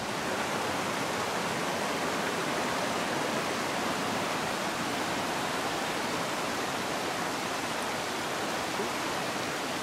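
River water rushing over boulders at small falls and rapids, a steady even rush with no break.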